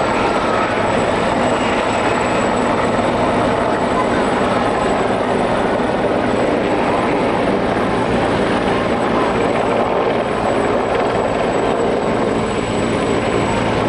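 Turbine military helicopters flying low: loud, steady rotor and engine noise that does not let up. An AgustaWestland AW139 hovering close is among them.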